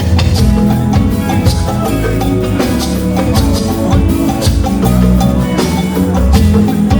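Live church music with drums and a steady beat under sustained instrumental tones, played for a special anthem at a thanksgiving service.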